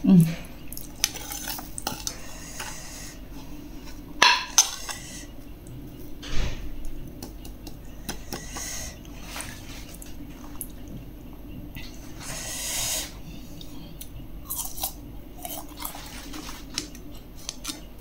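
Metal spoon clinking and scraping on a ceramic plate of chili-salt dip, in scattered sharp clicks with a longer scraping stretch near the middle, between bites of pickled fruit.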